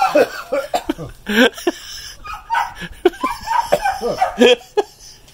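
Non-speech vocal sounds from a man whose mouth is burning from a raw Trinidad scorpion pepper: gasping, breathy huffs and coughing, with laughter and wordless cries mixed in.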